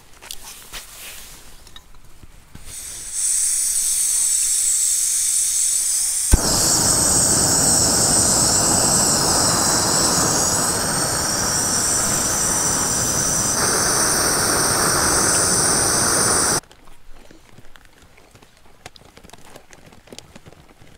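Screw-on gas canister camping stove: a hiss of gas begins about three seconds in, a sharp click about six seconds in lights the burner, and the flame then burns with a loud steady rush. It cuts off suddenly after about sixteen seconds.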